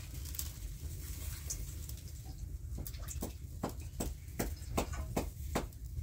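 A steady low rumble, joined about halfway through by a run of sharp, evenly spaced knocks, about three a second.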